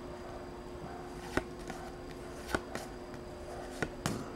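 Yu-Gi-Oh! trading cards being flipped through by hand, each card slid off the front of the stack to the back. There are four short sharp flicks, the last two close together, over a faint steady hum.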